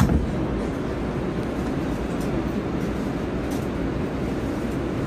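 Steady low rumble inside an R143 subway car standing at the platform, with a short thud at the very start as the doors close.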